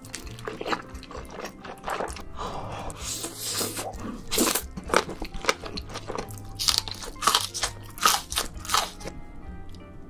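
Close-miked eating of jjajangmyeon, black-bean-sauce noodles: repeated wet slurps and chewing with crunchy bites, over soft background music.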